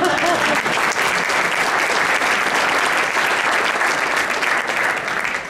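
Audience applauding: a steady mass of clapping hands that begins to die away at the very end.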